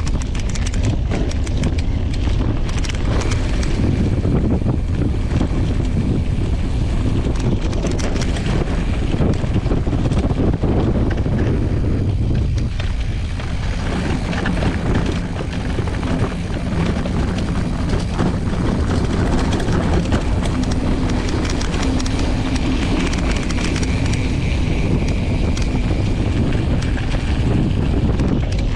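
Mountain bike riding over a dirt track: wind rumbling steadily on the microphone, with the knobby tyre rolling on dirt and many small clicks and rattles from the bike over stones.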